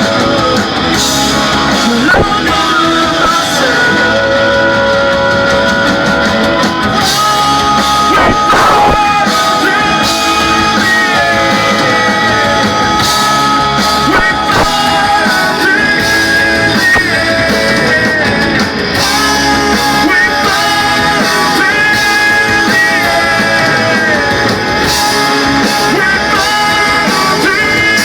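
A rock band playing loud live music: electric guitars and drums, with a singer's voice over them.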